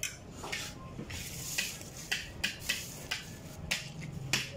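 Close-up eating sounds: chewing and mouth smacking in irregular sharp clicks, with light clinks of a spoon on a plate.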